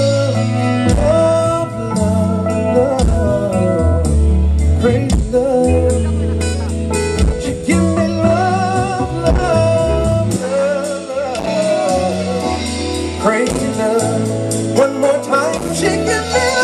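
Live band music: a man singing wordless, gliding vocal runs at the microphone over acoustic guitar and electric bass.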